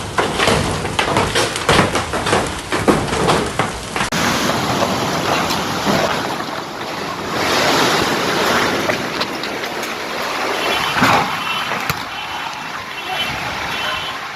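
Hailstones clattering on hard surfaces in a dense run of quick impacts; about four seconds in, this gives way to a steady rush of heavy rain and gusting wind that swells and eases.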